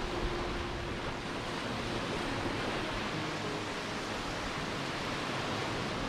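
Surf washing onto a sandy beach: a steady, even rush of waves with no single breaker standing out.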